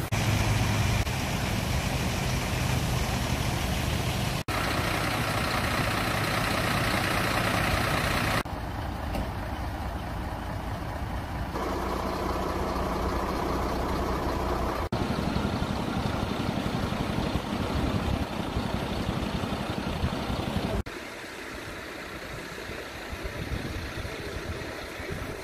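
Fire engines running at idle, a steady engine hum with a hiss of noise over it. The sound changes abruptly several times.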